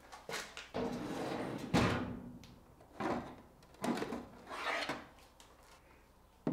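A tool-cabinet drawer sliding open, ending with a knock about two seconds in, followed by a few short rattles of plastic boxes being handled and lifted out of the drawer.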